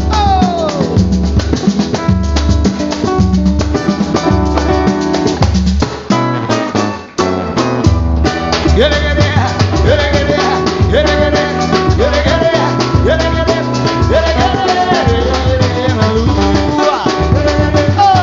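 Samba/pagode band playing an instrumental passage: shakers and drums under a gliding melody line. The music drops out briefly about six to seven seconds in, then the full band comes back in.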